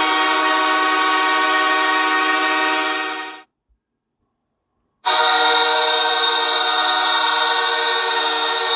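Recorded hockey arena goal horns: one steady multi-tone horn blast stops abruptly about a third of the way in, and after a second and a half of silence a second, brighter horn with a different chord starts and keeps sounding.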